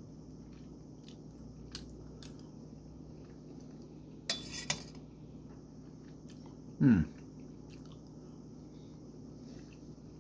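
A person chewing boiled vegetables, with a few small clicks, a short crunchy burst about four seconds in, and a brief low sound falling in pitch near seven seconds.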